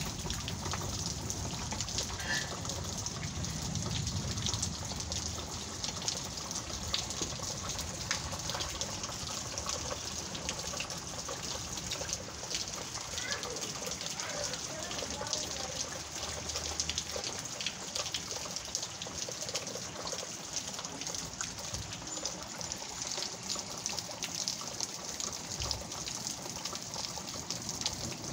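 Heavy rain falling steadily: a dense, even hiss full of small drop ticks, with a low rumble in the first few seconds.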